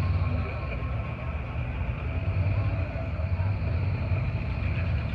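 Four-wheel-drive competition truck's engine running with a steady low rumble as it works over rock.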